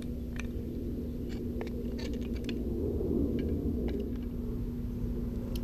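Light, scattered clicks of the plastic housing and brass gas parts of a disassembled Bernzomatic trigger-start torch being handled, a dozen or so small ticks over a steady low hum.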